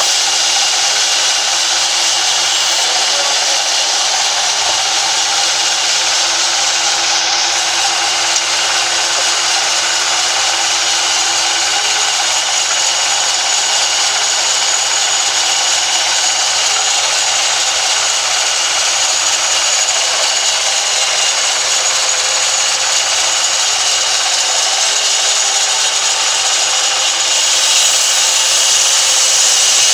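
Vertical band saw running and cutting a log as it is fed into the blade: a steady, high-pitched sawing noise that grows a little louder near the end.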